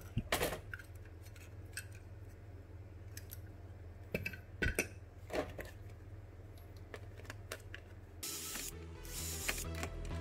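Scattered light clicks and taps of a plastic cassette-deck front panel and a small metal bracket being handled and fitted together, over quiet background music. About eight seconds in, the music gets louder with a steady pulsing beat.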